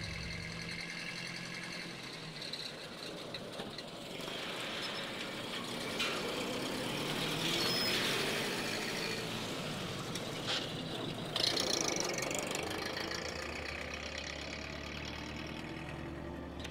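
Car engine running as a car drives slowly past.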